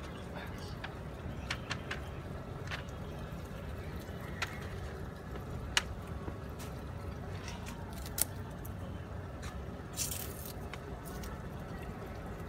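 Scattered sharp clicks and taps of a knife cutting through ketupat, the palm-leaf-wrapped rice cake, over a steady low hum of street traffic. There is a brief rustle about ten seconds in.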